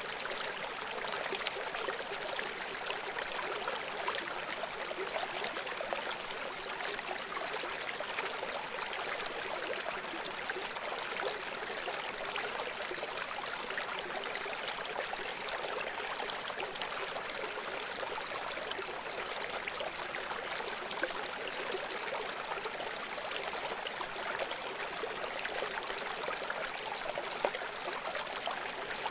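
Running water, a steady bright rush with no swell, break or change.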